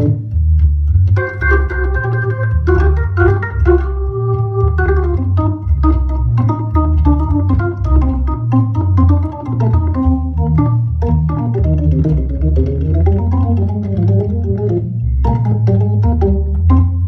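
Hammond organ played on both keyboards: steady bass notes underneath, with held chords and melodic runs above and a short click at the start of many notes.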